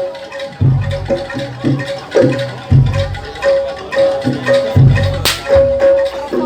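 Live Javanese jaranan gamelan music: deep drum strokes under a metallic mallet note struck over and over in short repeats, with one sharp crack about five seconds in.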